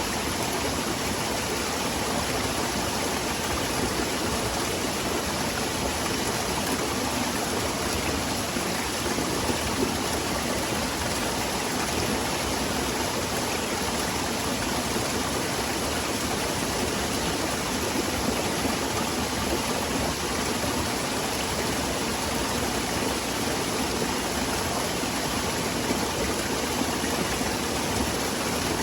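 A small waterfall and the stream below it, water pouring and rushing in a steady, even wash.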